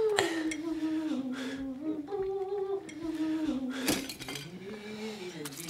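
Someone humming a slow tune in held notes that step up and down, with a few sharp metal clinks of kitchen utensils against cookware.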